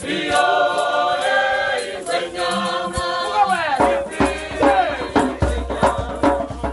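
Music: voices singing together over shaken rattles.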